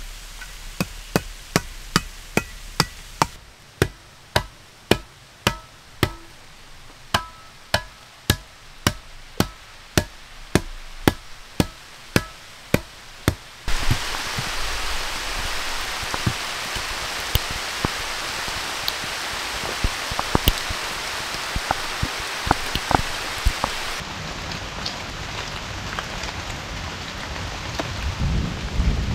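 A run of sharp, evenly spaced strikes, about two a second, some of them ringing briefly. About halfway through, this gives way to steady rain falling.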